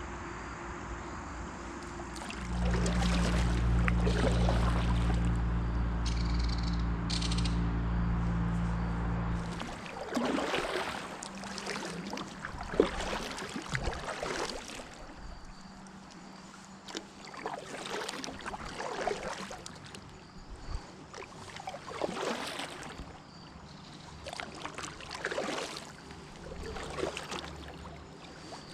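Kayak paddle strokes dipping and pulling through river water, about one stroke every one and a half to two seconds over the latter two-thirds. Before that, for about seven seconds, a loud low steady hum covers everything, then stops.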